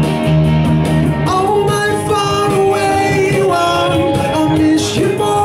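Live duo playing a slow pop-rock song to drum-machine backing, with a held, wavering sung melody line over it from about a second in.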